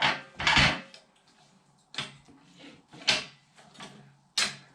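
Manual bead breaker on a tire changer working a motorcycle tire off a carbon fiber wheel: a series of about five sharp clunks and thuds as the breaker is levered down and the tire is shifted around the rim, the loudest at the start and about half a second in.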